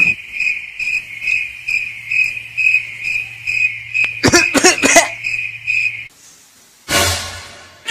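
Crickets chirping, a high chirp repeating evenly two or three times a second, which cuts off suddenly about six seconds in. A brief warbling sound cuts in about four seconds in, and a short hiss comes near the end.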